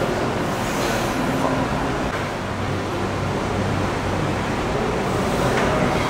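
Steady rushing background noise with a low hum, even throughout.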